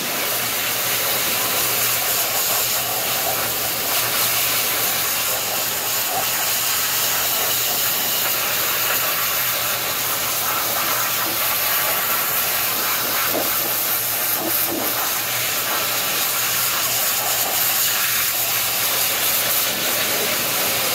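Hot-water pressure washer spraying a steady high-pressure jet onto a tractor pony motor: a continuous hiss of spray with a steady low hum underneath.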